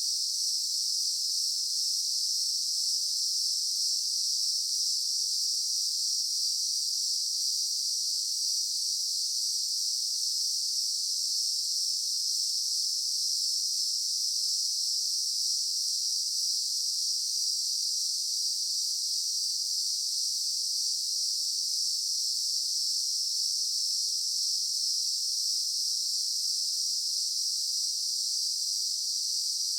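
Daytime insect chorus: a dense, continuous high-pitched shrilling from many insects, steady in level throughout.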